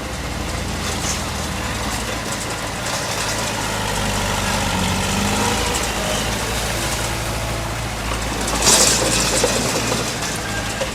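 Heavy diesel engine of earth-moving machinery running steadily, with a brief, louder noisy rush a little under nine seconds in.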